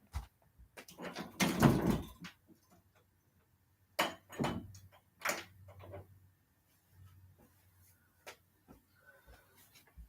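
A room door being handled, with a string of knocks and bumps: the loudest come about a second and a half in, and a few more follow around four to six seconds in.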